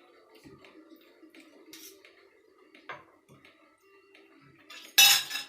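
Scattered faint ticks and small knocks of tableware, then a single loud sharp clatter of cutlery against dishes about five seconds in.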